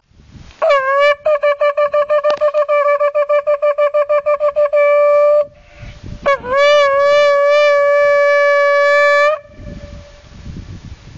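A shofar blown twice on one note. The first blast is a fast run of short broken notes, about eight a second, ending in a brief hold. After a short break comes a long steady blast of about three seconds that dips in pitch as it starts.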